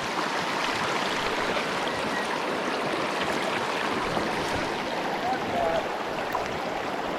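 Steady rushing of a river flowing slightly high after rain.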